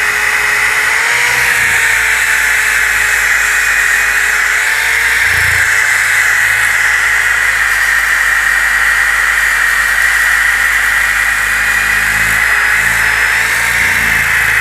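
DeWalt DWE6401DS disc sander running steadily against a wooden board: a steady motor whine that wavers slightly in pitch under load, over a loud sanding hiss.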